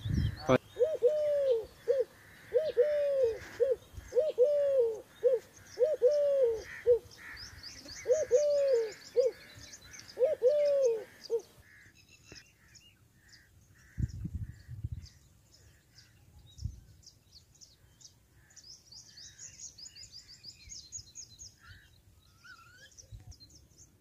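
Birdsong: a low hooting call that rises and falls, repeated about once a second, with high chirping of small birds over it. About halfway through the low calls stop and only fainter chirps and twitters remain, with a brief low rumble a couple of seconds later.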